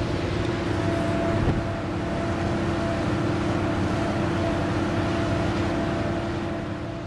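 Ferry's engines droning steadily, with a constant hum over a broad rush of wind and churning wake; the sound starts to fade near the end.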